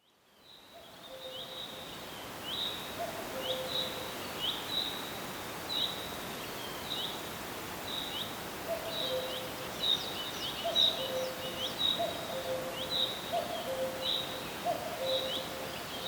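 Birdsong ambience fading in. One bird repeats short, high, falling chirps about once a second, while another repeats a low two-note call, the second note lower, over a soft steady hiss.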